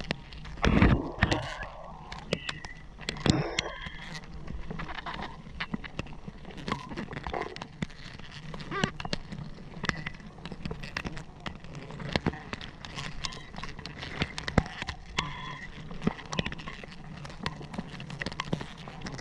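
Handling noise of a honey hunter cutting giant honey bee comb with a knife into a hanging bucket: leaves and branches rustling, with many small clicks and knocks, over a steady low hum of bees. There are two louder bursts of noise about one and three and a half seconds in.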